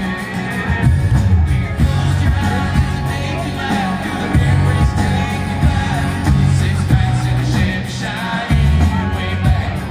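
Live band playing in a large arena, heard from the audience: drums, electric guitars and bass under a sung lead vocal, with heavy bass notes.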